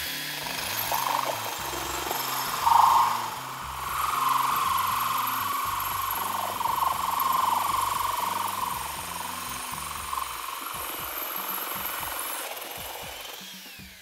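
Power drill cutting through ceramic tile with a diamond dry hole saw: a steady grinding whine with a louder rasping burst about three seconds in, the drill winding down near the end.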